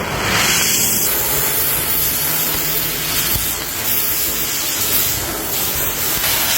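Steady, loud hissing rush of noise, a little brighter and sharper for the first second.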